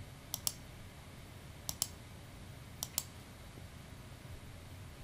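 Computer mouse clicking in three quick pairs, roughly a second apart, over quiet room tone.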